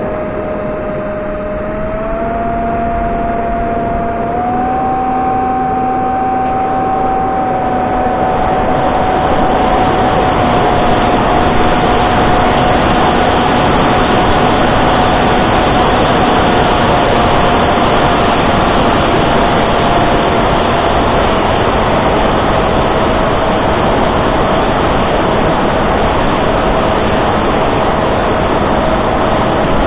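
Reptile S800 flying wing's electric pusher motor and propeller whining steadily in flight, heard from the onboard camera. The pitch steps up twice in the first five seconds, then slowly sinks, while wind rush over the airframe grows louder after about eight seconds.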